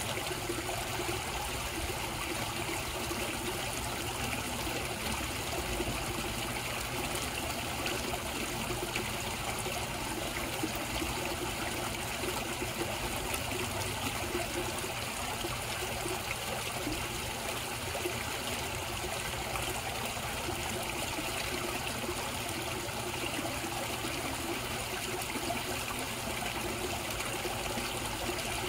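Koi pond water trickling and splashing steadily.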